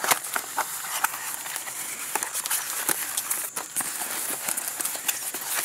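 Packaging of a battery box being opened by hand: cardboard and wrapping rustling and crackling, with many sharp clicks and snaps.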